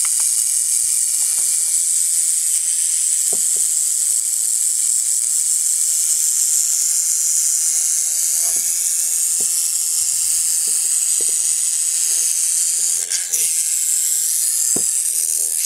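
South American rattlesnake (cascavel) buzzing its tail rattle in a steady, unbroken high hiss, the defensive warning of a stressed, disturbed snake. A few faint knocks sound under it.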